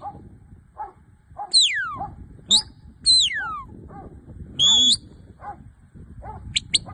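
An excited working dog whining and yelping in high, drawn-out cries, several sliding down in pitch, with short barks in between.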